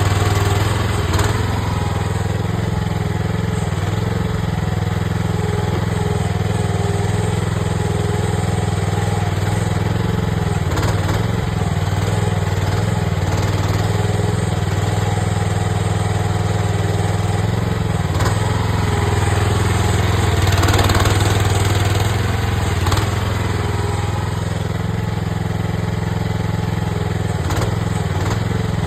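AGT mini excavator's engine running steadily under digging work, with a few short knocks scattered through and a brief swell in level a little after the middle.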